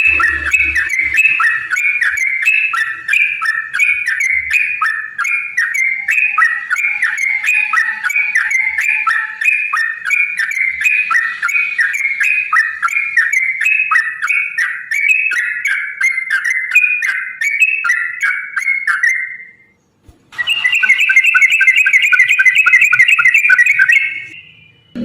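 Yellow-vented bulbul (trucukan) singing a long, rapid rolling song of quick repeated notes for about 19 seconds, then after a brief pause starting a second, denser burst.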